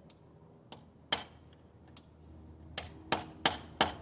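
A small sledgehammer strikes a steel tool held on a stuck cylinder head bolt, giving sharp metal-on-metal hits: one about a second in, then four quick ones near the end. The blows are meant to shock the bolt and break the seal of the sealant on its threads so it will turn.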